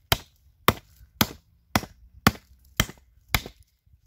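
Axe chopping into wood: seven sharp strokes at about two a second.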